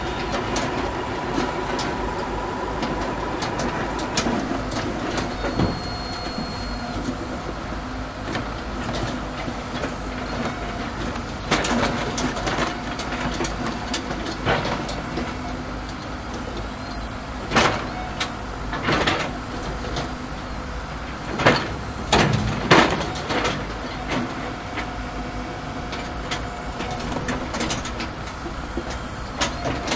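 Radio-controlled construction machinery working: a steady whine of small motors and pumps, with a run of sharp knocks and clatters about halfway through.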